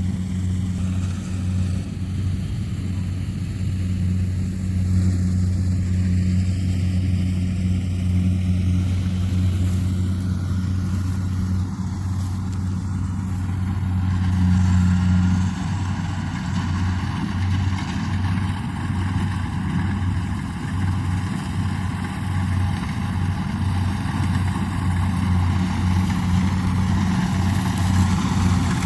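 Diesel engine of a Kubota rice combine harvester running steadily under load, a deep even hum. About halfway through, a broader, higher noise of the working machinery grows louder over the engine.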